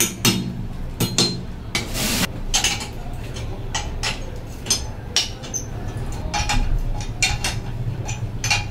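Metal tools and objects clinking and clattering as they are handled and set down, in irregular knocks, some ringing briefly, over a steady low hum.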